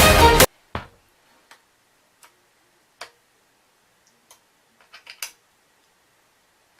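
Background music cutting off about half a second in, then sparse short clicks, about one every three-quarters of a second and a quick cluster of several near the end, as the scooter's triple clamp bolts are tightened with a hand tool.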